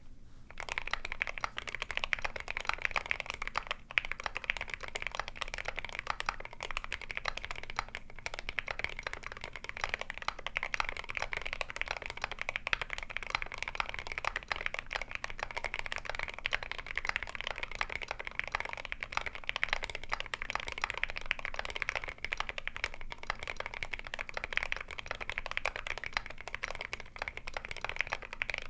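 Continuous fast typing on a GMMK Pro mechanical keyboard with a brass plate, lubed Akko Jelly Black linear switches, tape mod and MSA keycaps: a dense stream of key clacks with the occasional heavier stabilized key.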